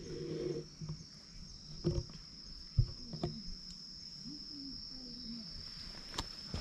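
Insects droning, one steady high-pitched tone. A few sharp knocks and rubbing sounds cut in, the loudest about two and three seconds in, as the cat's fur and body brush against the camera.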